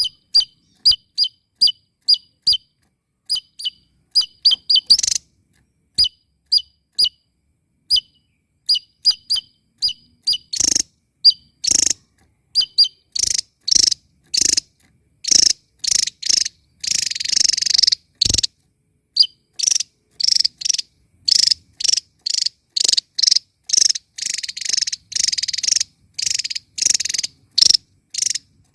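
A small songbird singing loudly: a long run of short, sharp, high chirps, a few a second, growing denser and louder, with a longer buzzy trill about seventeen seconds in.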